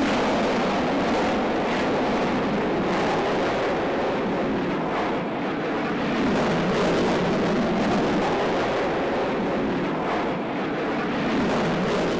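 Steady jet engine noise from a formation of military jets flying overhead, swelling and easing slowly.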